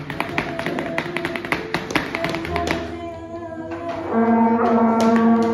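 Flamenco footwork: boots striking a stone floor in rapid heel-and-toe taps for the first few seconds, then music with held notes takes over and grows louder about four seconds in.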